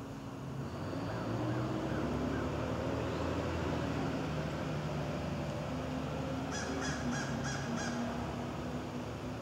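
A steady low drone of a distant engine, swelling about a second in, with a bird calling a quick run of about five sharp notes about seven seconds in.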